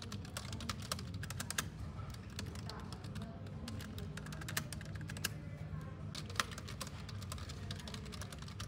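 Typing on a low-profile office computer keyboard: quick, irregular key clicks in runs with brief pauses, over a steady low room hum.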